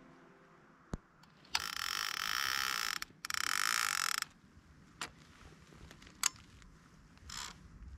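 A rasping mechanical ratcheting sound in two runs, the first about a second and a half long and the second about a second, with a sharp click before them and a few separate clicks after.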